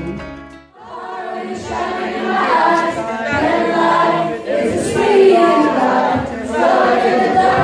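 A group of teenage students singing together without accompaniment, many voices at once. Background music fades out during the first second before the singing takes over.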